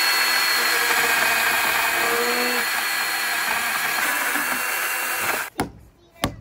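Milwaukee battery-powered pruning chainsaw running steadily as it cuts down through a wooden fence rail at a joint, then cutting off abruptly about five and a half seconds in. Two sharp hammer knocks follow near the end.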